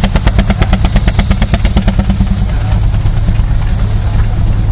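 Steam traction engine working, its exhaust beating fast and evenly at about nine beats a second; a little after two seconds in the beat gives way to a steadier low rumble of a running engine.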